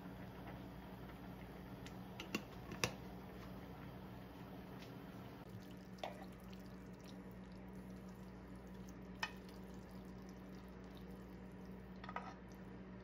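A few light, sharp clicks and clinks of kitchenware: tongs knocking against a frying pan and ceramic oven dishes while spaghetti is served. Underneath is a steady low hum.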